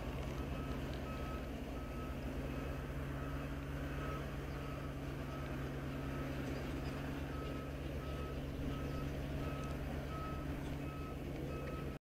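Reversing alarm on a construction vehicle beeping at a regular pace, over the steady low hum of its diesel engine.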